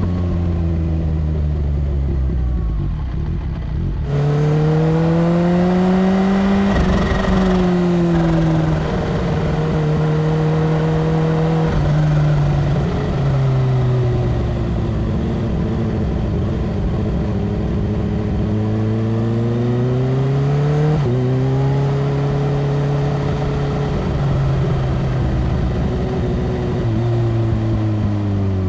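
Kawasaki Ninja H2's supercharged inline-four engine under way at highway speed, its revs falling, then rising sharply about four seconds in along with a rush of wind on the microphone. The pitch drops in steps as it shifts up, sinks and climbs again, and jumps suddenly about two-thirds of the way through, as on a downshift, before falling away near the end.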